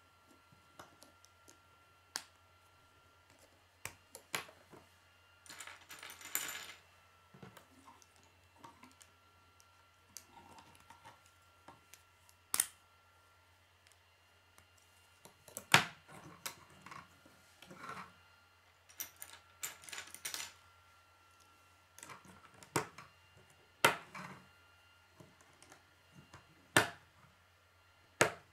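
Plastic K'nex rods and connectors clicking and snapping as they are pressed together and handled, in sharp irregular clicks with a brief rustle of pieces.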